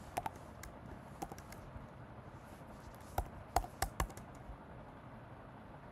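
Computer keyboard keys tapped in short, scattered runs of a few keystrokes, with pauses between them.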